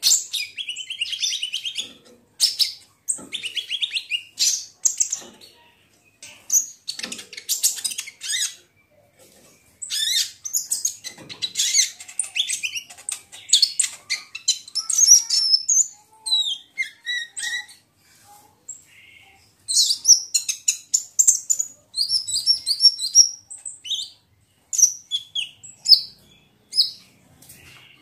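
Kolibri ninja (Van Hasselt's sunbird) singing: rapid, high-pitched twittering phrases lasting a second or two each, repeated in bursts with short pauses between them.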